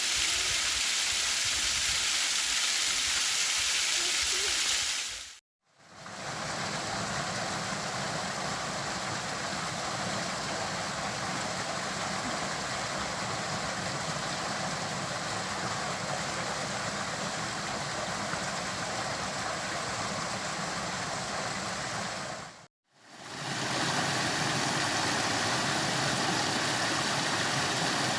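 Flowing water, a steady rush of a stream or waterfall, broken by two short dropouts where the sound cuts out and fades back in.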